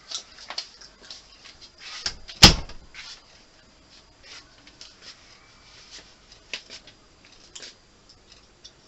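A door bangs shut once, about two and a half seconds in, among scattered light clicks and knocks in a small room.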